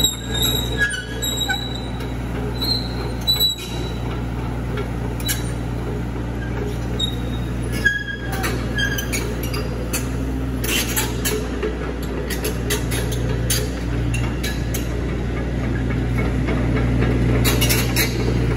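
JKW-65 crawler excavator working: its engine runs with a steady low drone under frequent metallic clanks and short high squeaks from the moving machine. The clanks come thickest from about ten seconds in.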